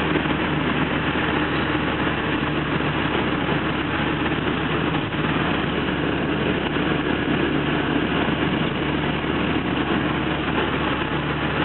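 Cabin noise of a VW Golf turbo diesel cruising at highway speed: a steady engine drone under road and tyre noise.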